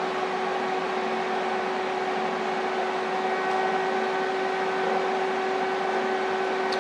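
TIG welder running with a steady hum: a few fixed tones over a hiss, unchanged throughout.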